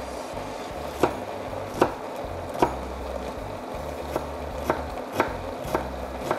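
Kitchen knife chopping onion on a wooden cutting board: about eight sharp, unevenly spaced knocks of the blade on the board. Underneath runs a steady hiss and a low hum that cuts in and out.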